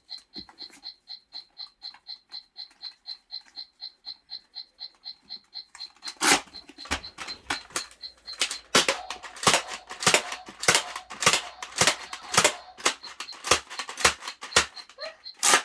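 High electronic beeping, about three beeps a second, for the first six seconds, typical of a scoring target counting. Then a rapid, irregular run of sharp clacks and knocks from a foam-dart blaster firing and darts striking the target.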